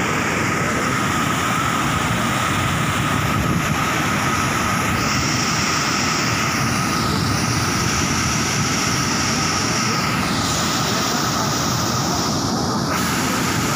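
Muddy floodwater rushing steadily through a concrete canal spillway, a constant even rush of churning water.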